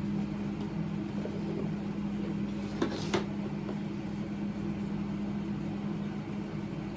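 Steady low hum of a running appliance or fan in the room, with two short clicks about half a second apart near three seconds in.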